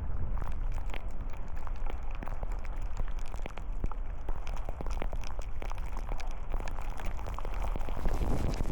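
Raindrops striking the camera and vehicle in many irregular sharp clicks, over a steady low rumble of wind.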